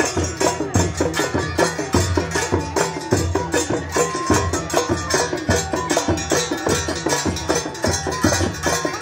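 Senoufo kodali drum ensemble: large barrel drums slung at the hip, beaten by hand in a fast, steady rhythm, with sharp clicking strokes on top and a held wind-instrument tone over them.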